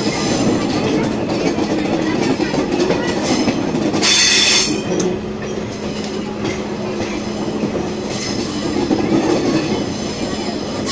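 Passenger train coaches running on a curving hill track, their steel wheels squealing against the rails in high ringing tones that come and go, loudest about four seconds in, over a steady rumble and low hum.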